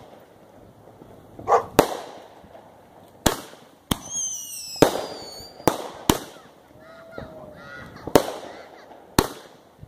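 Aerial fireworks bursting: a string of sharp bangs, about eight in ten seconds, unevenly spaced. About four seconds in comes a high whistle that falls in pitch over a second or so.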